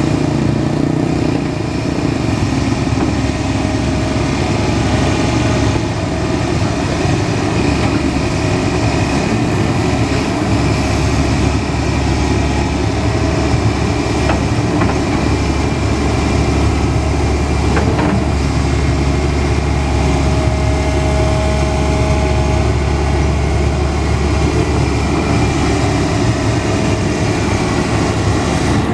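Cat 320D hydraulic excavator's diesel engine running steadily while it works, with a couple of light knocks about halfway through.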